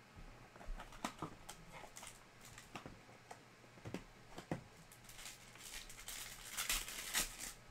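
Hands handling trading-card packaging: a series of scattered taps and clicks as hard plastic card holders and a card box are set down and picked up, then a crinkly rustle of a foil pack wrapper about six and a half seconds in.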